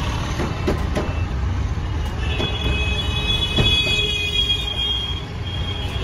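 Scooter engine running with a steady low rumble and a few sharp metallic clinks. A high-pitched squeal lasts about three seconds in the middle, which the owner puts down to the worn rear brake shoes.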